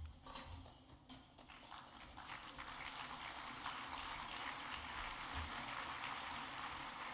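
Audience applauding: a few scattered claps at first, swelling into steady applause about two seconds in.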